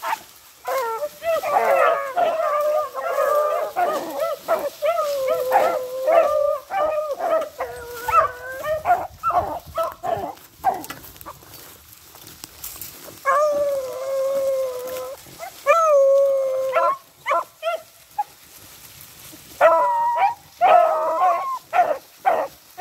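A pack of hunting dogs baying on a trail, several voices overlapping in long drawn-out howls. They fall quiet about halfway through, howl again, and break into shorter, choppier barks near the end.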